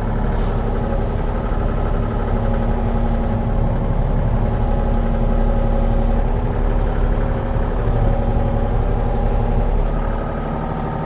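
Engine running steadily at a constant speed, with a steady hum and only small swells in level.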